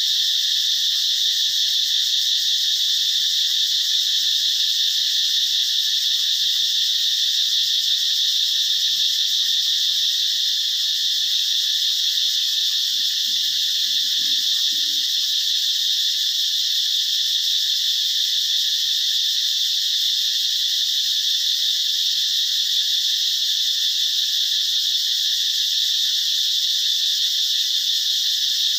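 A loud, steady, high-pitched chorus of calling animals that never breaks.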